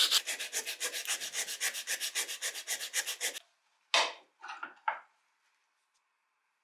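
A strip of sandpaper is pulled back and forth by hand across a steel wrench: a fast, even rasp at about seven strokes a second that stops suddenly about three and a half seconds in. A few short scuffs of handling follow.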